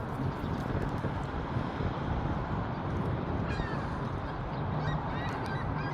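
Gulls calling: a few short squawks about halfway through and again near the end, over a steady low rushing background.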